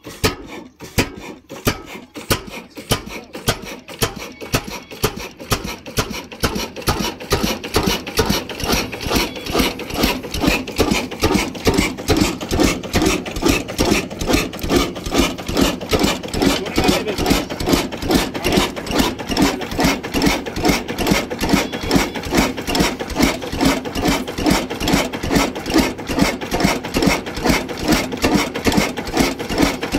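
Old horizontal single-cylinder diesel oil engine with a heavy flywheel, of Ruston Hornsby type, just started. Its firing beats quicken and grow louder over the first several seconds as it picks up speed. It then settles into a steady, even chuffing of about three beats a second.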